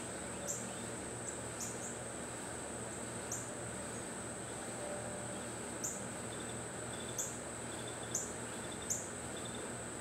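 Insects trilling steadily at a high pitch, with short sharp chirps every second or so over a steady low background noise.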